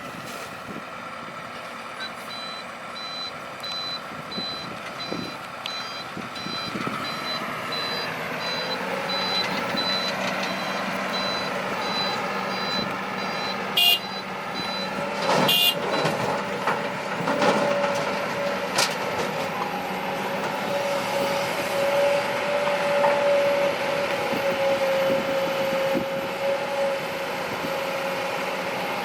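Heavy diesel machinery running, with a reversing alarm beeping repeatedly until about halfway through. Two sharp clanks come near the middle, and an engine rises in pitch and holds steady through the second half.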